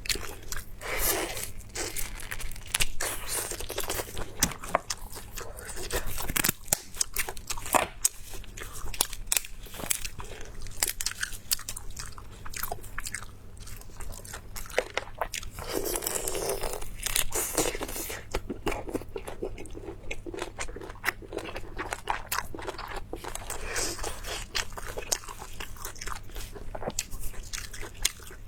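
Close-miked eating: a person biting and chewing crunchy spicy food, a dense run of sharp crunches and chewing sounds.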